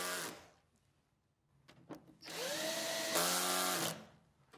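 Cordless drill-driver driving the screws of an inverter's lower cover. A short run ends about half a second in; after a pause with a couple of light clicks, a second run spins up with a rising whine and holds for about two seconds.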